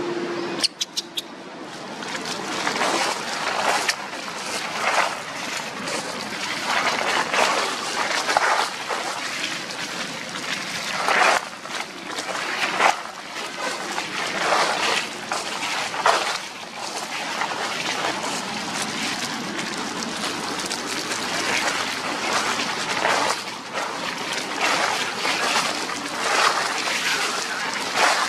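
Dry fallen leaves crunching and rustling underfoot in irregular surges, with three sharp clicks about a second in.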